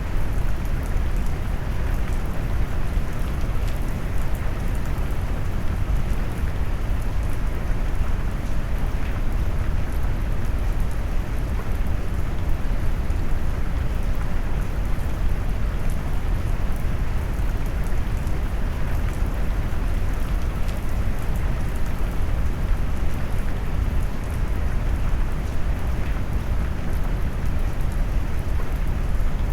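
Steady rain noise mixed with deep brown noise, a low, warm rumble under faint pattering drops, unchanging throughout.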